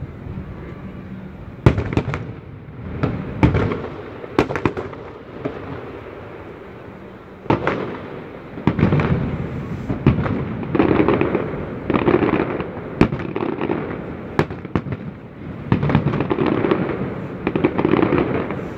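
Aerial fireworks bursting: a handful of separate sharp bangs, then from about halfway on a dense run of rapid overlapping bursts.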